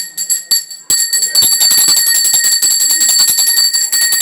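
Puja hand bell rung rapidly without pause, a fast, even ringing. After a few scattered strokes it settles into continuous ringing about a second in.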